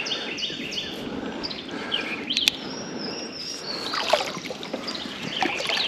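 Songbirds singing: a quick series of short, repeated high chirps, then a long, steady, high whistled note about three seconds in, over a background hiss and a sharp click midway.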